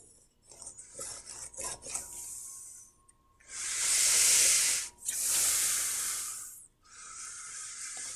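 Fine-tipped Sharpie marker scratching along a steel straightedge on galvanized sheet metal, tracing a layout line with a marker that is running dry. A few short strokes come first, then two long, louder strokes about a second and a half each, then a quieter stroke near the end.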